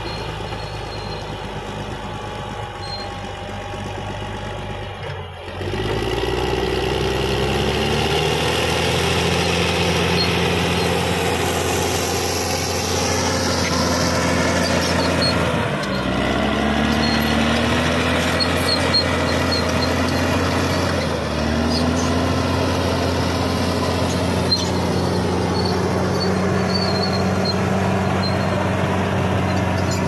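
Caterpillar D6R XL bulldozer's diesel engine running under load. It gets louder about five seconds in and rises in pitch a few times as it revs while the dozer pushes up the slope.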